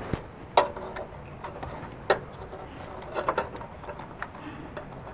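Clicks and knocks of a screwdriver and the plastic handle housing of a miter saw as it is screwed and fitted back together. Two loud clicks come about half a second and two seconds in, the first with a short ring, and a quick run of smaller clicks follows about three seconds in.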